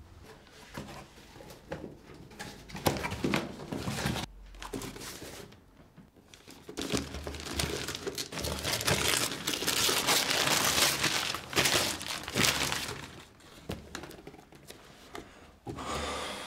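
Gift-wrapping paper on a small present crinkling and tearing as it is unwrapped by hand. The crackling comes in fits at first and is densest in the middle, then thins out near the end.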